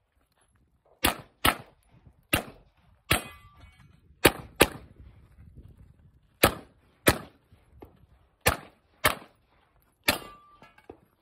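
Pistol shots fired as a shooter works through a stage: about eleven sharp reports, mostly in quick pairs half a second apart, each with a short echo. Two of the shots are followed by a brief ringing tone.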